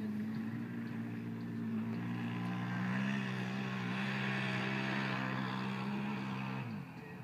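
Quad (ATV) engine running at steady revs under load as it climbs a sand hill, then the revs fall away and the sound drops off near the end.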